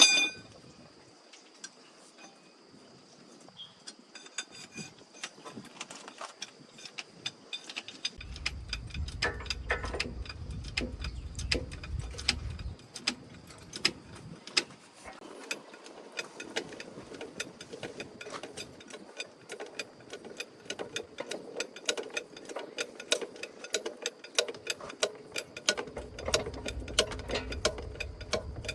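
Metal hand tools at work: a sharp metallic clink with a brief ring at the start, then many quick clicks and clinks, like a ratchet wrench being worked. A low rumble comes in twice, in the middle and near the end.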